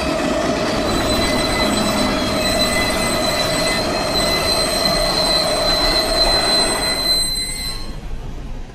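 Loaded crude oil freight train's wheels squealing under emergency braking: steady high-pitched squeal over the rumble of the rolling cars, starting about a second in. The noise drops away sharply near the end.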